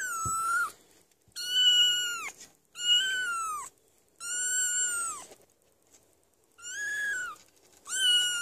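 A kitten a few weeks old mewing repeatedly, close up. There are about six high-pitched mews, each under a second long, with the pitch dropping at the end of each.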